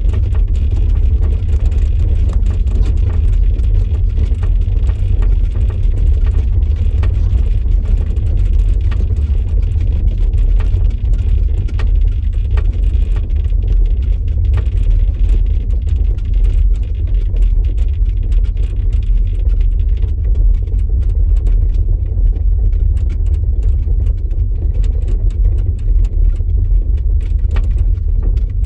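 VW e-Up electric car driving: a steady low road rumble with faint, scattered ticks and rattles, the kind of rear-axle noise the owner is complaining about.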